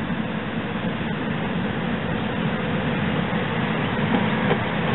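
SEPTA Silverliner IV electric multiple-unit train approaching, its steady rumble growing slowly louder as it nears.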